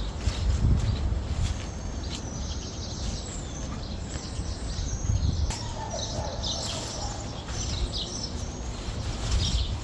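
Birds chirping and calling, many short high calls, over a steady low rumble.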